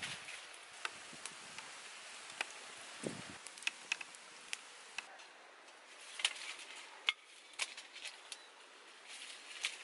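Small wood fire crackling under a cooking pot: scattered sharp pops and snaps over a faint steady hiss.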